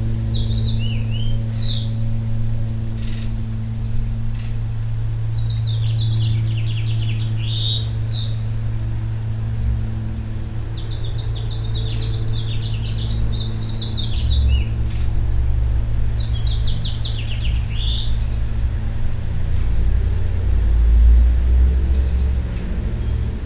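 Small birds chirping and twittering, with a short high note repeated at an even pace, over a steady low hum.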